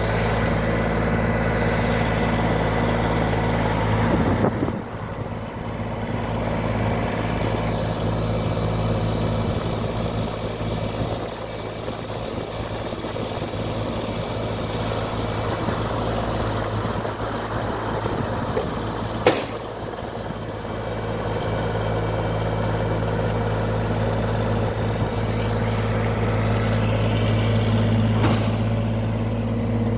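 Iseki SXG324 lawn tractor engine running steadily while the hydraulic lift of its SBC650 high-tip grass collector raises the collector and brings it back down. The engine note goes unsteady from about four seconds in and settles again about two-thirds through. There is a sharp clunk at about that point and another near the end.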